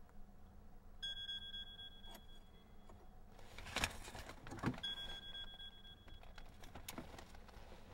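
Mobile phone ringing: a steady two-tone electronic ring twice, the first about two seconds long and the second shorter, with clicks and rustling of handling in between and after.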